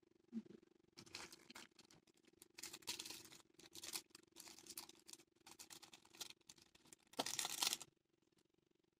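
Plastic instant-ramen sauce and seasoning sachets being torn open, crinkled and squeezed, in irregular rustling bursts with the loudest burst near the end, over a faint steady hum.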